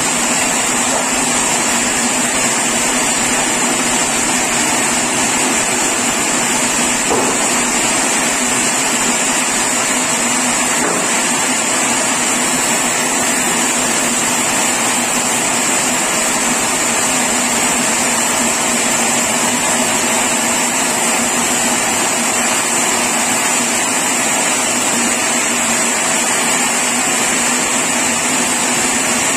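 Sawmill machinery running steadily: a constant loud mechanical noise with a steady high whine and low hum that do not change.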